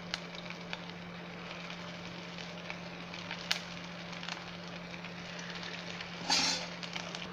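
Marinated paneer cubes deep-frying in hot oil: a steady sizzle with scattered crackles, and a brief louder burst of sizzling a little past six seconds in. A steady low hum runs underneath.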